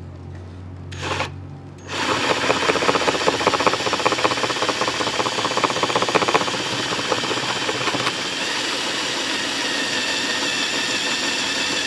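Cordless drill with a hole saw running in reverse against a carpeted door panel, the saw teeth rubbing through the carpet and the foam behind it instead of biting. It starts about two seconds in and runs steadily with a fast rattle.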